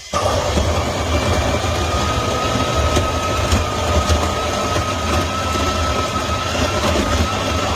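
Krups Evidence bean-to-cup coffee machine starting abruptly and running steadily: a loud low hum with a steady whine over it.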